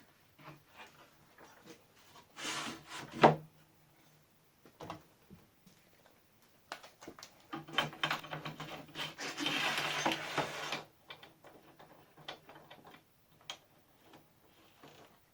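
Parts of a homemade table-saw station being handled and moved by hand, with no saw running. There are scattered clicks and knocks, and a short scraping slide about two and a half seconds in that ends in a sharp click. A longer sliding, rubbing stretch follows, from about seven and a half to eleven seconds in.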